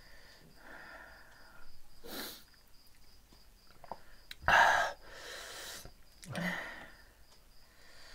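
Several loud sniffs and breathy exhales from a person eating spicy noodles, the loudest about halfway through.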